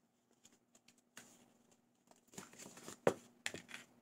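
Small jewelry packaging being handled: crinkling and rustling, with a few faint clicks in the first second and one sharp click about three seconds in.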